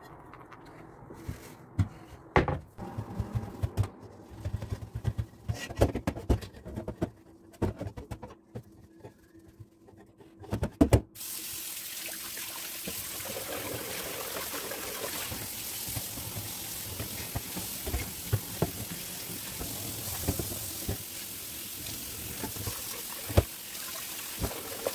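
Stainless steel pot and lid knocking and clattering against a metal kitchen sink as they are handled for washing, with two sharp knocks about eleven seconds in. Then the tap is turned on and runs steadily into the pot as it is rinsed.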